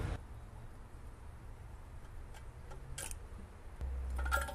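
A few faint clicks and a short clatter near the end, from tools and metal parts being handled on a Hatz 2G40 diesel engine during teardown, over a low steady rumble.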